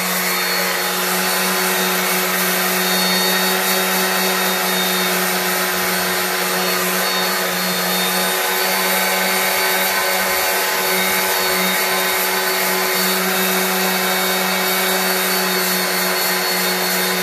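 Handheld electric detail sander with a triangular pad running steadily against an aluminum truck wheel: a constant motor hum with a high hiss as 220-grit paper sands a stained, corroded spot on the hub face.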